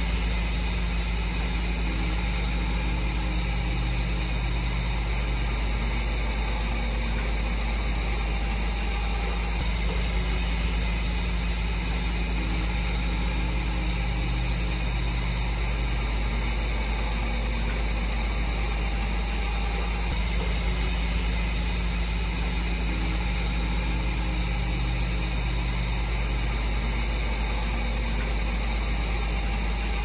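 A heavy earthmoving machine's diesel engine idling steadily, swelling slightly about every ten seconds.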